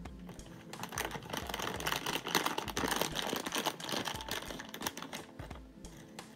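Plastic blind-bag wrapper crinkling and crackling as it is opened and handled and a die-cast toy car is pulled out, a dense run of crackles loudest in the middle seconds.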